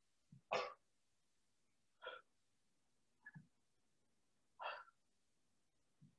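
A man's short, sharp breaths out, four of them about every second and a half, the first the loudest, with the effort of each hip lift in single-leg bridge reps. A few faint low thuds fall between them.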